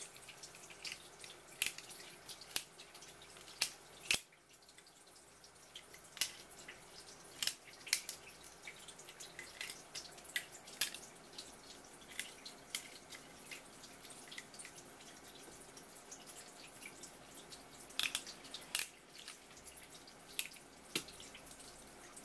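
Tap water running steadily onto a wooden cutting board, with sharp, irregular clicks and cracks as a swimming crab's shell and legs are cut and broken apart by hand with a metal tool.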